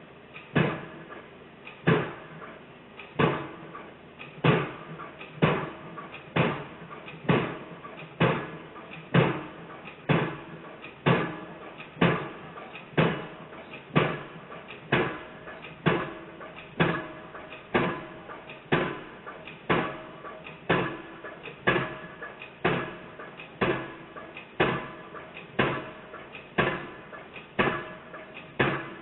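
Excavator-mounted piling hammer driving a tubular steel pile for an overhead-line foundation: regular blows, each ringing briefly, about one a second at first and quickening to roughly three every two seconds near the end.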